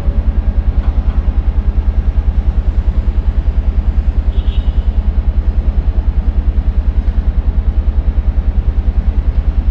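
Low, loud rumbling drone in an electronic soundtrack, throbbing with a fast, even pulse, with a faint brief high chirp about halfway through.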